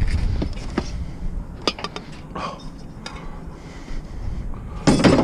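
Pieces of scrap metal, aluminum among them, clinking and knocking together as they are handled, with a louder clatter near the end.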